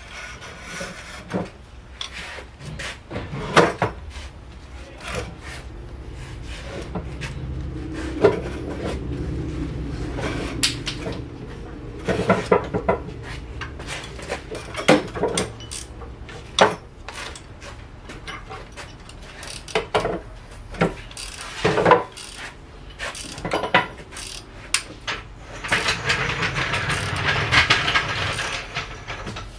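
Hand tools and metal parts being handled during engine work: scattered sharp clicks, knocks and light clatter, with a rough scraping noise for a couple of seconds near the end.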